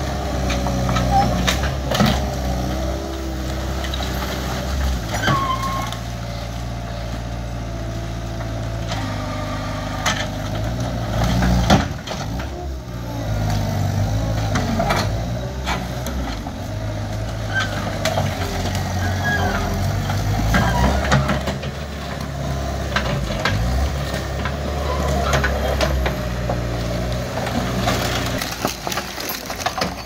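Skid steer engine running steadily, its pitch rising and falling as it works, with scattered knocks and clanks of demolition debris and a loud crash about twelve seconds in.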